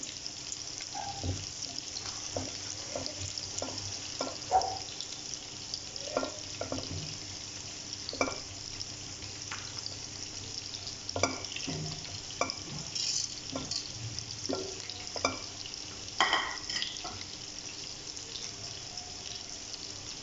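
Chopped garlic sizzling steadily in a little oil in a non-stick wok, with irregular clicks and knocks from a silicone spatula scraping and tapping the pan as it is stirred.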